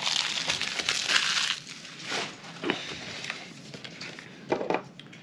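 A thin plastic packaging bag crinkling and crackling loudly for the first second and a half, then quieter scattered crackles and small ticks as fingers pick at the tape sealing a small cardboard box.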